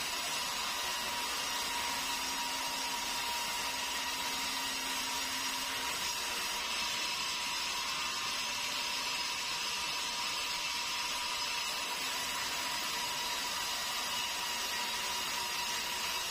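Sawmill band saw running steadily and cutting through meranti timber fed in by hand, a dense even noise with a high, steady whine.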